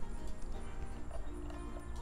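Background music with steady held notes, with faint handling knocks beneath it.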